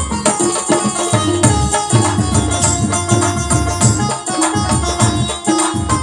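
Instrumental passage of South Asian folk music with a steady drum beat under a held melody, without singing.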